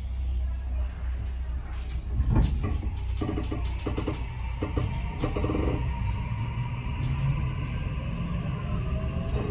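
Tokyu 7000 series electric train heard from inside the car as it pulls away: a steady low rumble from the running gear. Near the end the Toshiba IGBT VVVF inverter's whine starts to climb in pitch as the train accelerates.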